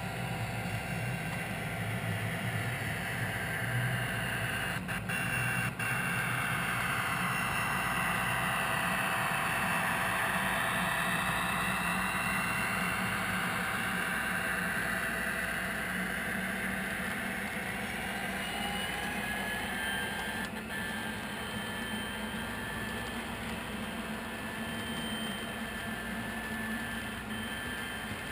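HO scale model freight train rolling past: a steady hum with the whir of wheels on the rails, swelling for several seconds in the middle as the cars go by, with a couple of sharp clicks about five seconds in.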